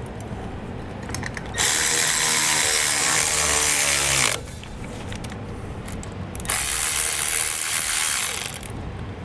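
A cordless power ratchet runs twice, for a couple of seconds each time, driving in the bolts that hold a trailer disc brake caliper to its mounting bracket.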